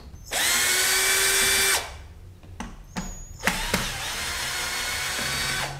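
Cordless electric drill-driver backing out a rifle stock screw, running in two bursts: a loud steady whine for about a second and a half, a few clicks, then a second, quieter run that lasts longer.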